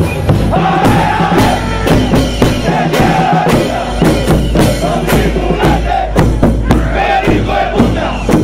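A loud crowd of protesters chanting and shouting together, many voices at once, with frequent sharp beats through it.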